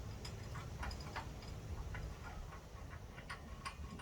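Small metal hardware being fitted by hand: light, irregular clicks and ticks as flat washers and nuts go onto the jack mount bolts and are run on hand tight.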